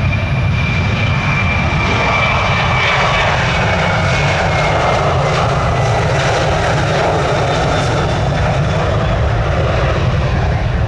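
Jet airliner's engines at takeoff power: a loud, steady rumble and roar with a high whine that slowly falls in pitch over the first few seconds.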